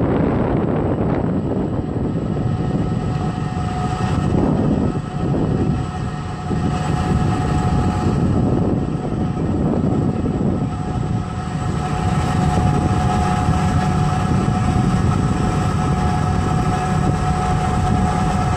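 Tractor engine running steadily under load while it pulls a spading machine working the soil: a continuous low drone with a faint steady whine above it.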